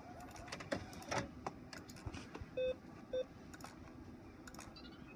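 Two short electronic beeps about half a second apart from the control panel of an HP Officejet 4500 printer, amid scattered light clicks and handling knocks.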